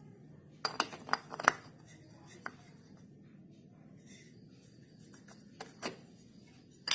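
Hard clicks and clinks of the scooter's CVT parts being handled during reassembly: a quick run of five or so in the first second and a half, then a few single clicks spread through the rest.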